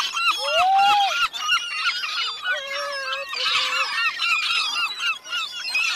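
A flock of gulls calling over one another: a dense, unbroken stream of short, repeated calls, many birds at once.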